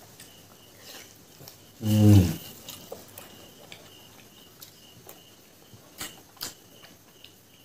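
A man eating with his hands: wet chewing and lip-smacking clicks, with one loud, low hummed 'mmm' of enjoyment about two seconds in that falls in pitch, and two sharp mouth smacks about six seconds in.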